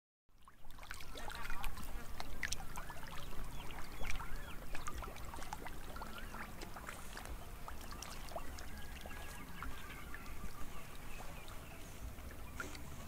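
Fish wriggling and splashing in a shallow muddy puddle: many small irregular clicks and splashes, mixed with short chirping animal calls and a low steady rumble underneath.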